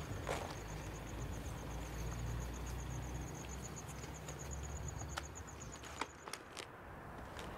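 A night insect chirps steadily, a rapid even run of high pulses that stops near the end, over a low background hum. A few soft taps and rustles come from a blanket being spread out over cardboard.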